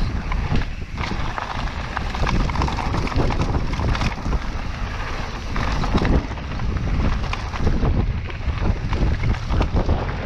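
Mountain bike riding down a rough dirt trail. Wind buffets the microphone over a constant irregular clatter of the bike rattling and the tyres knocking over the ground.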